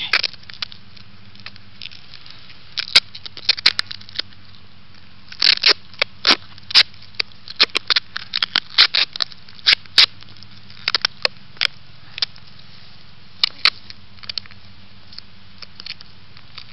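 Duct tape being pulled off the roll and wrapped around a cardboard tube: sharp, irregular crackling rips in clusters with short pauses between them.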